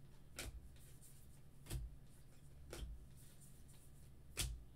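Baseball trading cards being flipped through one at a time in a hand-held stack: four faint, short card flicks a second or so apart.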